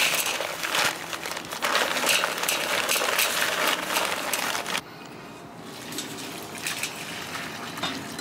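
Dry fast-setting concrete mix poured from its paper bag into a post hole: a steady rustling hiss with crinkling of the bag, which stops suddenly about five seconds in and leaves only quieter sounds.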